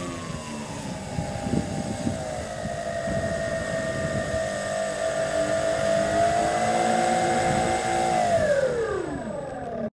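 Twin engines of a radio-controlled scale model de Havilland DH.88 Comet running at low throttle while it taxis on grass. The pitch rises slightly, then falls away steadily near the end as the engines wind down.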